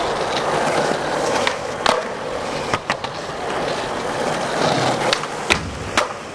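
Skateboard wheels rolling on a smooth concrete floor, a steady rolling hiss, broken by a few sharp clicks and knocks from the board, the loudest about five and a half seconds in.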